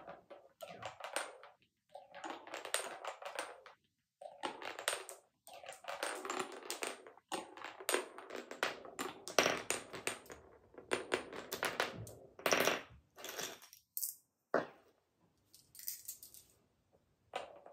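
A marble rolling down a Cuboro wooden marble run, rattling along the grooved tracks and clicking against the wooden blocks as it drops from level to level, with short pauses as it passes through the tunnels. The run falls quiet about three seconds before the end.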